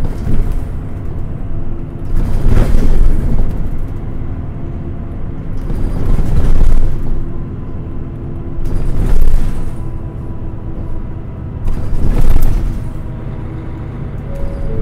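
Running sound heard from inside a 2005 Mitsubishi Fuso New Aerostar city bus on the move: diesel engine and road rumble, swelling louder every three to four seconds, with a faint steady whine.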